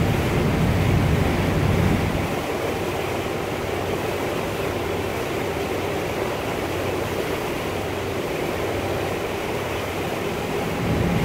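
Steady rush of wind and water aboard a ship underway, with a low engine hum that drops away about two seconds in.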